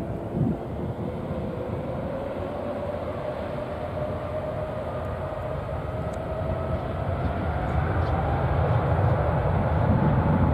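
Twin-engine widebody airliner's jet engines spooling up to takeoff thrust, heard from behind: a whine rising steadily in pitch over a low rumble that grows louder toward the end.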